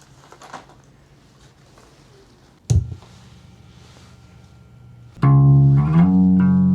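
A loud pop as an instrument cable is plugged in, followed by a low steady hum. About two and a half seconds later the plugged-in electric string instrument starts playing sustained ringing notes, the loudest part.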